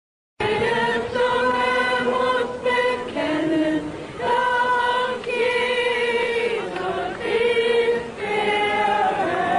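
Many voices singing a slow worship song together in unison, in long held notes. It cuts in abruptly about half a second in.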